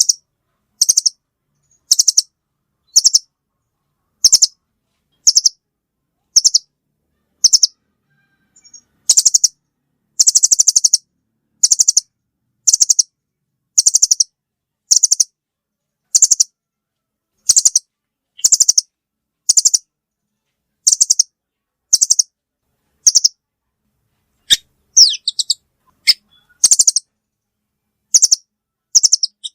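Velvet-fronted nuthatch calling: short, high, rapid chattering bursts repeated about once a second, with a few different sweeping notes mixed in near the end.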